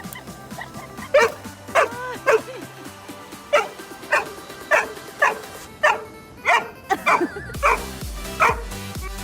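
Dog barking repeatedly, about a dozen sharp barks starting about a second in, over background music.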